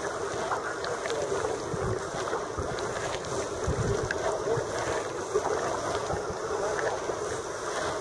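Sea kayak paddling: water splashing and sloshing around the paddle blades and hull, with wind buffeting the microphone in a few low thumps.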